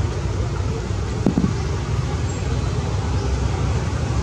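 Steady low outdoor rumble with an even hiss above it, like wind on the microphone or distant traffic, and one brief knock about a second in.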